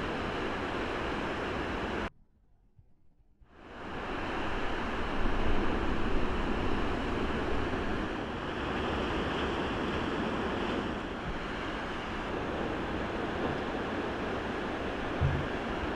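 Heavy ocean surf breaking on a beach break, a steady rush of waves and whitewater. It drops out to near silence for about a second and a half a couple of seconds in, then fades back up, with a brief low thump near the end.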